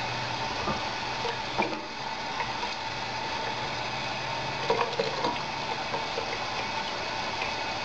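Water from a kitchen tap running steadily into a stainless-steel sink, with a few light clicks.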